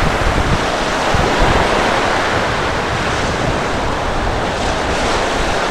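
Storm surf breaking and washing on the shore, a steady loud rush of waves, with strong wind buffeting the microphone.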